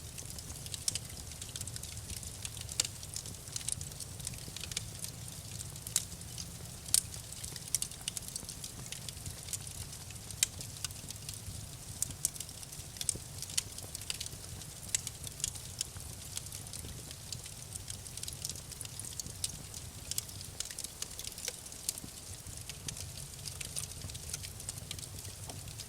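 Wood fire crackling and popping: many sharp, irregular pops over a steady low rumble of the flames.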